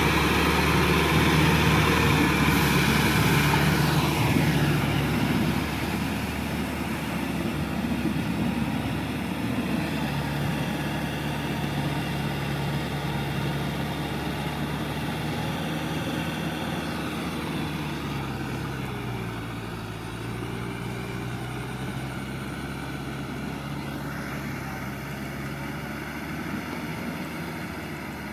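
Kubota M6040SU tractor's four-cylinder diesel engine running steadily under load as it pulls a rear rotary tiller through a flooded rice paddy. It is loudest in the first few seconds, then grows quieter as the tractor moves away, and its note drops slightly near two-thirds of the way through.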